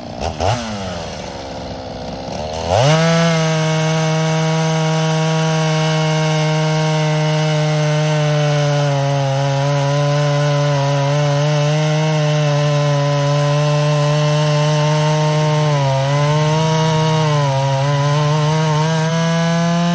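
Vintage Poulan chainsaw with a ported and polished cylinder and custom exhaust. It gives a quick throttle blip that falls away, then about three seconds in it revs to full throttle and holds high revs steadily while cutting through a log. Near the end the pitch dips briefly twice.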